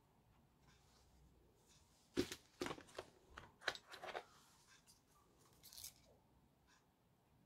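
Hands handling a phone's soft plastic case and its cardboard box packaging: a quick run of taps, clicks and scrapes from about two to four seconds in, the first the loudest, then a light rustle near the end.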